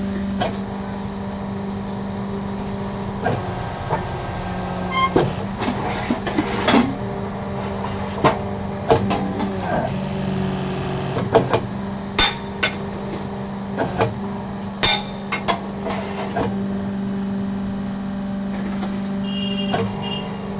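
Electric motor and hydraulic pump of a fly ash brick-making machine running with a steady hum. Scattered knocks and clanks come through it, thickest in the middle stretch, as the machine is loaded and worked.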